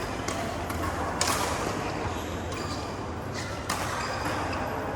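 Badminton rally: a racket strikes the shuttlecock sharply twice, about a second in and again near the four-second mark, with lighter clicks of play in between.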